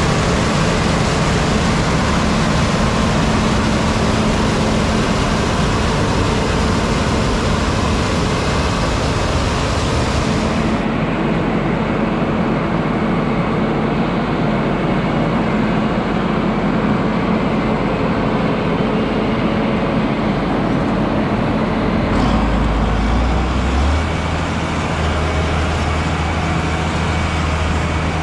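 Heavy diesel farm machinery running steadily under harvest load, with a constant engine hum and a mechanical rush. About a third of the way in, the high hiss drops away. Near two-thirds of the way through, a deeper low hum comes in.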